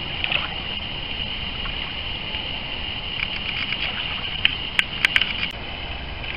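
Small lake waves lapping close to the microphone at the water's edge, with low wind rumble and a steady high-pitched hiss. A few sharp clicks come between about four and a half and five and a half seconds in.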